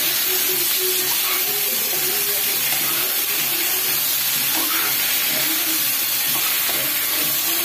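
Vegetables sizzling in a hot pan with a steady hiss of steam while a spoon stirs them.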